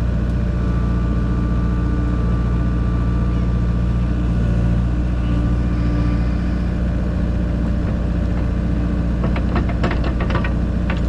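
A machine's engine running steadily at a constant speed, with a quick run of knocks near the end.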